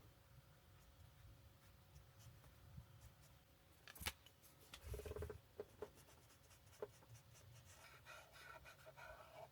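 Alcohol marker tip scratching softly across paper in coloring strokes, with a sharp click about four seconds in and a few light taps shortly after.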